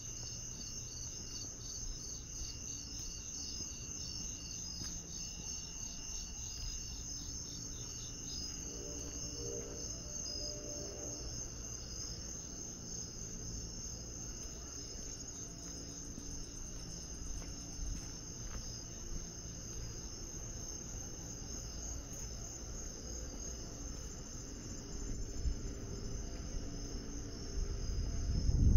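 Night chorus of crickets and other insects chirping steadily in overlapping high trills; one fast-pulsing chirper drops out about eight seconds in. A low rumble lies underneath and swells briefly near the end.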